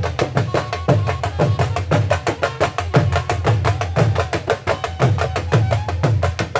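Punjabi dhol drum played in a fast rhythm: rapid sharp stick strokes, several a second, over deep bass beats about twice a second.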